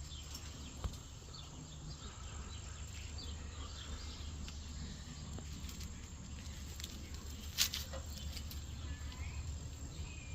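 Quiet background with faint insect chirping over a steady low hum, broken by a sharp click about a second in and another near eight seconds.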